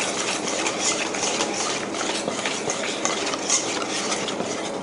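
Thick flour-and-egg batter being stirred in a stainless steel mixing bowl, the utensil scraping and sloshing against the metal in quick, regular strokes, several a second.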